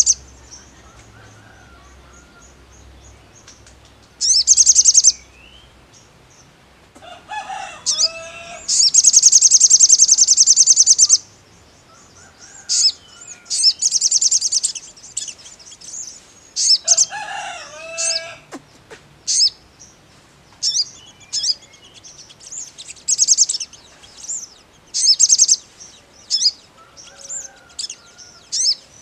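Male olive-backed sunbird (sogon) singing in high, fast trilled phrases: one long trill of about two seconds, then a run of short trills about a second apart. Lower calls come in twice beneath the song.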